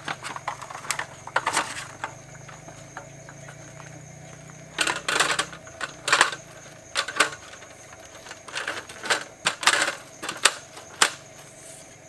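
Slatted aluminium roll-up camp tabletop clattering and clicking as it is handled and laid onto its folding frame. The rattling comes in irregular bursts, busiest in the middle and again toward the end.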